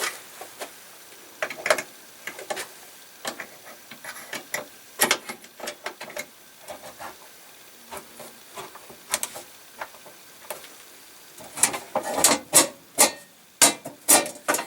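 Clicks and short scrapes of cartridge fuses being handled and fitted into an electric furnace's fuse holders, with a denser, louder run of clicks about twelve seconds in.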